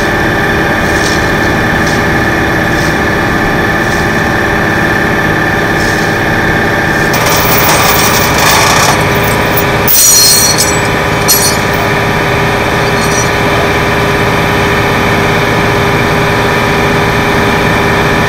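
Flatbed tow truck's engine running steadily at idle, with a constant hum. About seven to eleven seconds in come loud metallic clanks and scraping, as of tie-down chains being worked around the wrecked car on the bed.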